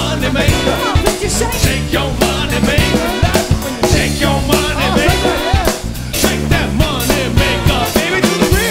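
Live funk band playing at full volume: a steady drum-kit beat and bass line under keyboards and a brass and saxophone horn section, with singing on top.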